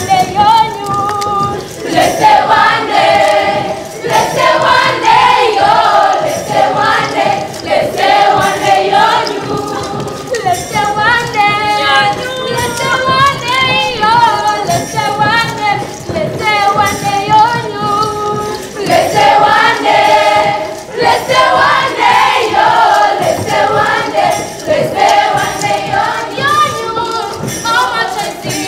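A group of voices singing a Pokot traditional song together in chorus, over a light, regular percussive beat.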